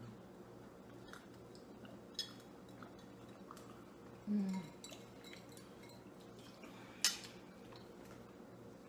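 Quiet eating at a table: a few light clinks of cutlery and glassware and soft chewing over a faint room hum. There is a short low hum-like murmur a little past four seconds and a sharper clink about seven seconds in.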